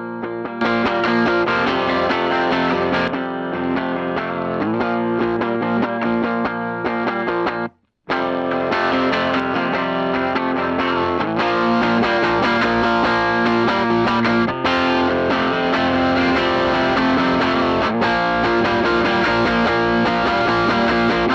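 Distorted electric guitar played through a Donner gain pedal into a Fender '59 Bassman amp, miked with an SM57. The playing breaks off briefly about eight seconds in, then starts again.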